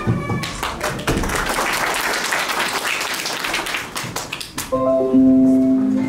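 Audience clapping after a recited poem. About five seconds in, music begins with steady, held notes.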